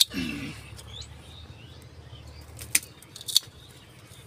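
Sharp snaps of dragon fruit stems being cut in pruning: one loud snap at the start, and two more about three seconds in. A brief low voice sound follows right after the first snap.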